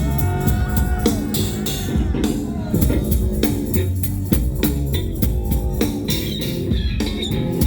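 Rock band playing an instrumental intro: a heavy bass line with drum kit and guitar, before the singing starts.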